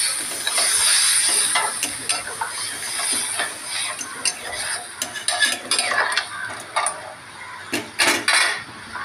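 Metal spatula scraping and clinking against a metal pan, stirring potatoes in masala just thinned with water, over a hissing sizzle that eases off after the first couple of seconds. The loudest scrapes come about eight seconds in.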